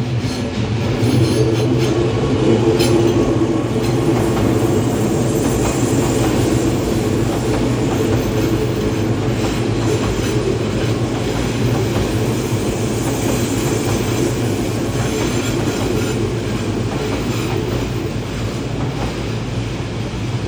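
Odakyu 1000 series electric train running into the station: a steady train rumble with wheels clacking over rail joints and, at times, a high wheel squeal.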